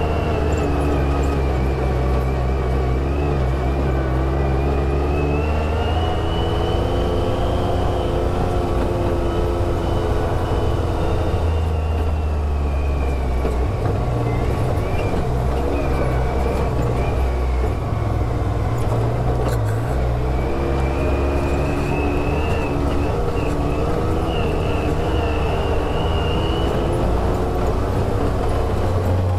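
Side-by-side UTV engine running while driving, its pitch rising and falling with the throttle and dropping low for several seconds midway. A high whine rises and falls along with it.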